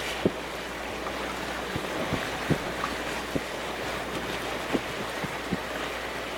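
Choppy harbour water washing steadily, with irregular low thumps scattered through it.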